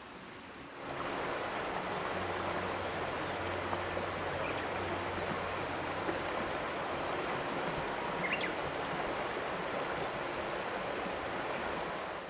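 River water rushing in a steady, even flow that fades in about a second in and falls away near the end, with faint background music under it.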